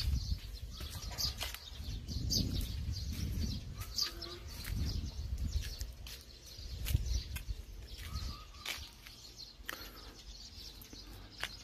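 Birds chirping in short, scattered high calls, over a low intermittent rumble on the microphone.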